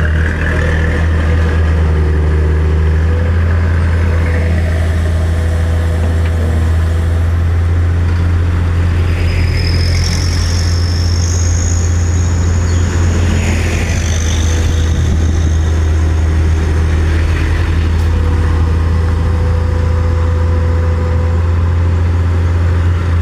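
Engine idling steadily with a strong, deep hum. A high-pitched whine comes and goes from about nine to fourteen seconds in.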